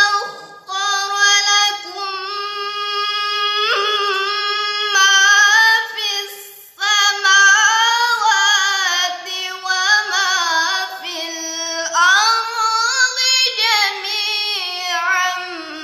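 A girl's solo Quran recitation in the melodic tilawah style: long held vowels with wavering ornaments, broken once by a short pause about seven seconds in. The melody climbs to a higher pitch about twelve seconds in.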